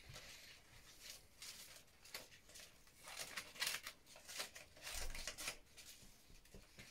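Small scissors snipping through paper, a quiet run of irregular snips with the paper rustling as it is turned.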